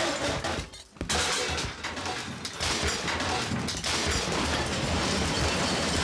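Household things being smashed in a kitchen: crashing and breaking, with a brief lull about a second in.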